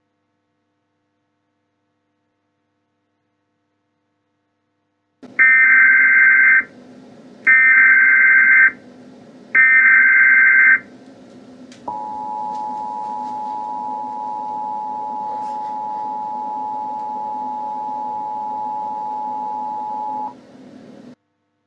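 Emergency Alert System tones for a tornado warning: about five seconds in, three loud bursts of warbling SAME data header, each about a second long, then the two-tone attention signal held steady for about eight seconds, over a faint hum.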